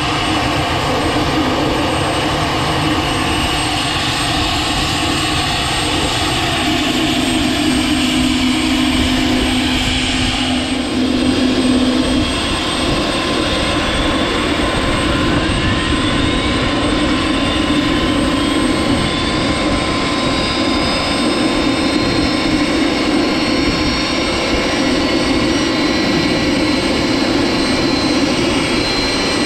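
UH-60L Black Hawk's T700 turboshaft engines running during start-up, a loud steady jet-like roar with the main rotor turning slowly. About halfway through, a whine rises steadily in pitch and then holds as an engine spools up.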